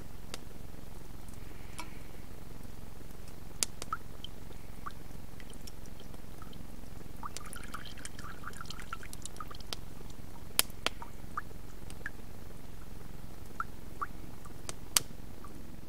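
Water being poured into a handmade natural-material water filter and dripping out of it in scattered single drops, with a brief denser trickle about halfway through. A few sharp clicks stand out over a steady low hiss.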